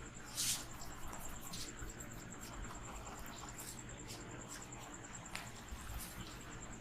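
Hands massaging a head, rubbing and scratching through the hair in short crackling strokes, the loudest a brief rush of scratching about half a second in. A steady, high-pitched, fast-pulsing trill runs underneath.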